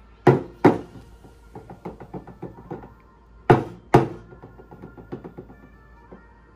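Stainless steel milk pitcher of steamed milk knocked twice on the countertop, followed by a run of lighter rattles as it is swirled; the pair of knocks and the rattles come again about three seconds later. The tapping and swirling settle the milk foam, knocking out large bubbles before the pour.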